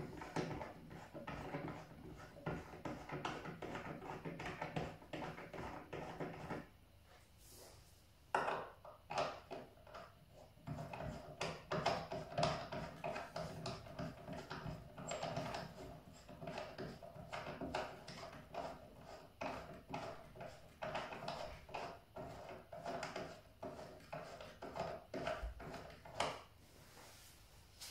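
3D-printed plastic feet being screwed by hand onto threaded bolts in a dart machine's wooden side panel: a run of rapid scraping, clicking thread noise. It pauses for a second or two about seven seconds in, then carries on.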